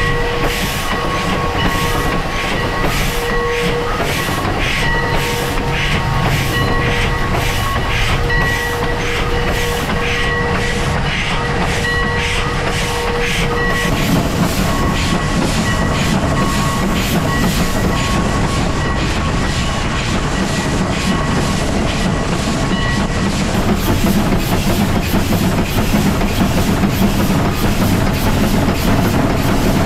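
Heisler geared steam locomotive running, heard from beneath the engine. For about the first half there are even beats about two a second, with a steady high ringing tone over them. Then the sound changes to a lower, rougher running noise without the tone.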